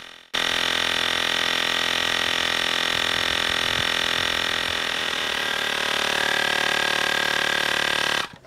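Airmoto cordless tire inflator's small piston compressor running steadily while pumping up a car tire, a mechanical hum with a fast, even pulsing. It shuts off abruptly near the end as the tire reaches its preset 36 PSI.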